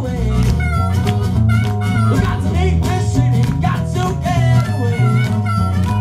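Live blues-rock band playing, with a strummed acoustic guitar, an electric guitar and a harmonica over a steady beat.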